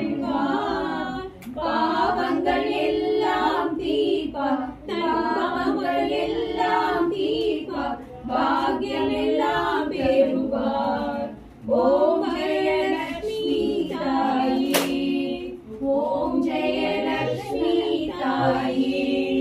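Women's voices singing a devotional song together, unaccompanied, in phrases of a few seconds with short pauses between them. There is one sharp click about three-quarters of the way through.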